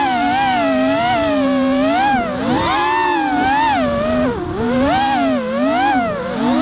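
Onboard audio of a racing quadcopter's four brushless motors (RMRC 2204 2600kv) spinning Racekraft 5040 three-blade props, a whine that swings up and down in pitch with the throttle through the turns, dropping sharply twice in the second half.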